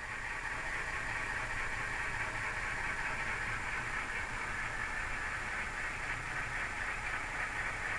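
Simulated ALCO 251 V-16 diesel engine sound from a Tsunami DCC sound decoder, played through a model locomotive's tiny sugar-cube speaker. It is a steady, hissy engine rumble that grows a little louder over the first second or so as the locomotive approaches, then holds.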